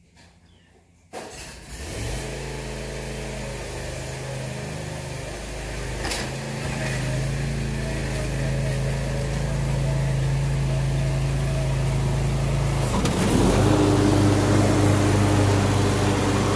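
Craftsman Z6000 zero-turn riding mower's engine starting about a second in, then running steadily. Near the end it gets louder and its pitch changes as it throttles up and comes closer.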